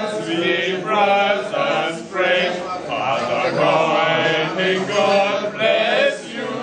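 A small group of men singing a hymn together, holding long sung notes, with short breaths between the lines.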